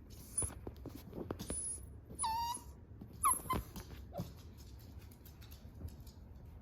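Nine-week-old basenji puppy whining to get up onto the couch: two short high whines, a little over two and three seconds in, among light clicks.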